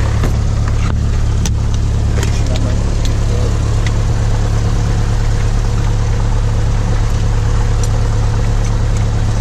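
Cessna 172's piston engine and propeller running steadily, heard from inside the cockpit as a constant low drone. A few faint clicks come in the first few seconds.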